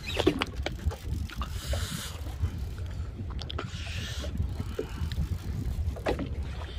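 Small fishing boat at sea: a steady low rumble with the wash of waves against the hull, two brief swells of hissing water about two and four seconds in, and scattered light knocks and clicks.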